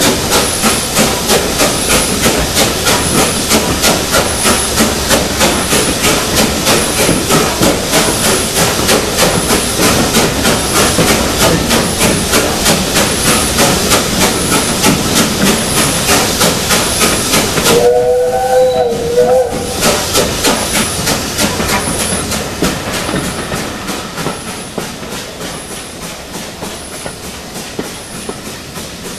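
A steam-hauled train running through a tunnel, heard from a carriage window. The locomotive's rhythmic beats and the rolling wheels echo loudly off the tunnel walls, with steam hissing. A short whistle sounds about two-thirds of the way through, and the noise drops away near the end as the train leaves the tunnel.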